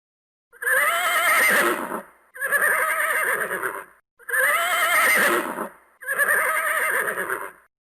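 Horse neighing four times, each whinny about a second and a half long with a wavering, shaky pitch and short gaps between. The same pair of neighs plays twice over.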